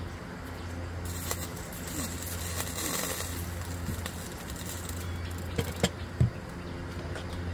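Hot water poured from a small metal kettle into a mug, a hissing trickle for a few seconds, then the kettle set back down on the camp stove's metal grate with a couple of sharp clinks near the end. A steady low hum runs underneath.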